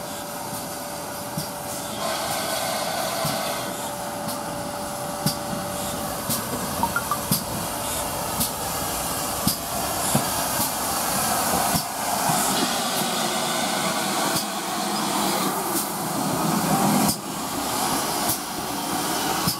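GWR 5205-class 2-8-0 tank engine no 5239 Goliath running slowly past on its own, with a steady hiss of steam and sharp irregular clicks and knocks from its wheels and motion over the track, growing a little louder as it comes close.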